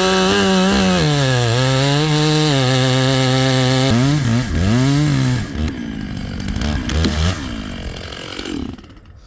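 Stihl MS661 Magnum two-stroke chainsaw with a 3-foot bar running at full throttle, cutting through a persimmon log. Its pitch dips now and then under the load. About four seconds in the revs fall and the engine runs quieter and unevenly until it stops near the end.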